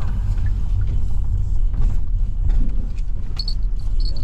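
Car in motion heard from inside the cabin: a steady low rumble of engine and road noise, with a few faint, short high-pitched squeaks near the end.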